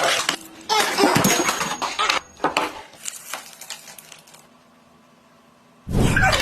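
Clinking and clattering of small hard objects that dies away over the first few seconds, then a sudden loud noise starting near the end.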